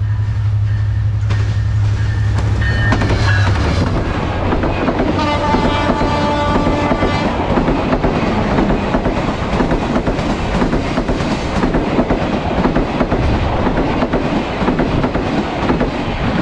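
Diesel passenger train passing close at speed. About five seconds in, the locomotive's horn sounds for roughly two seconds, then the coaches rush by in a long, loud stream with the wheels clattering over the rail joints.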